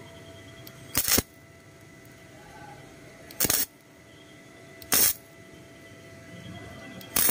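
Gasless flux-core MIG welder (Powerhouse Midtech 250) striking four short spot tacks on galvanized steel angle bar: four brief bursts of arc, each about a quarter of a second, spaced one to two and a half seconds apart.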